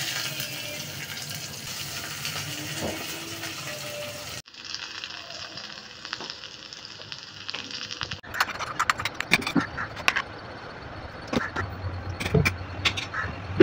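Food sizzling steadily in pans on a gas stove. Then, near the middle, a burst of sharp clinks and knocks as a steel spoon strikes a steel mixer-grinder jar while ingredients are spooned in and water is poured.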